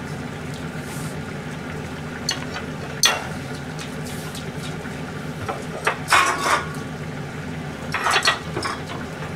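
Dishes and kitchen utensils clattering as plates are picked up and set down, with sharp knocks about three seconds in, a cluster around six seconds and another around eight seconds, over a steady low hum.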